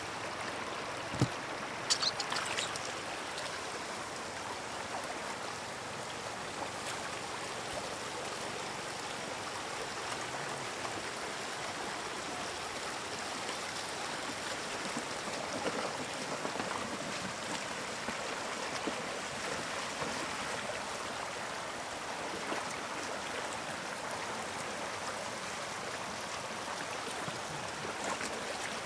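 Shallow floodwater rushing steadily over stones, with a few sharp knocks and splashes about one to two seconds in.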